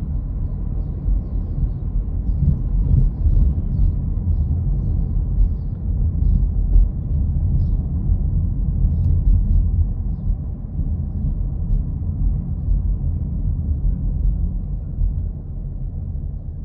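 A steady low rumble with a few faint scattered ticks, without speech.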